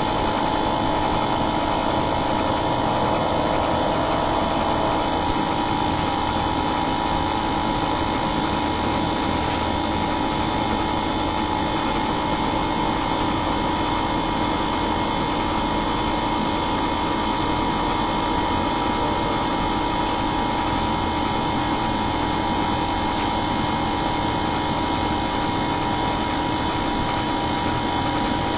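Inverter air conditioner running: a steady mechanical hum and whir with a thin, high steady whine over it. A lower tone drops out about four seconds in.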